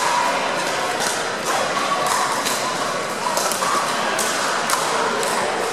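Pickleball paddles hitting a plastic pickleball during a doubles rally: a quick series of sharp pocks, roughly two a second, over a steady background hum of the hall.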